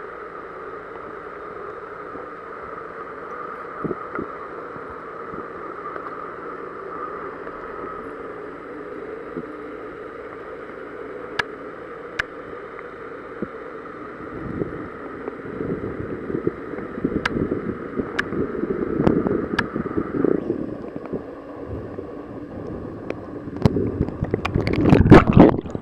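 Water heard through a submerged camera: a steady underwater hum, then from about halfway a growing rush and gurgle of water with scattered sharp knocks as the camera is swept about and hauled up, loudest just before the end.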